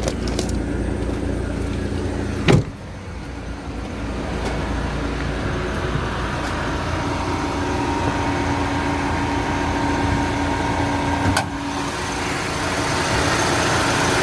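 Car engine idling steadily under the open hood, with one loud thump about two and a half seconds in and a smaller knock near the end.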